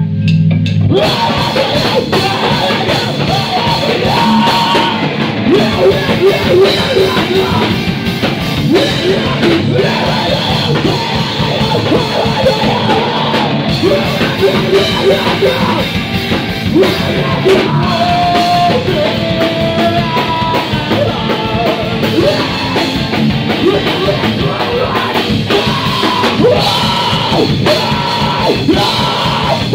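Live rock band playing loudly: electric guitar and drum kit with yelled, sung vocals. The full band comes in about a second in.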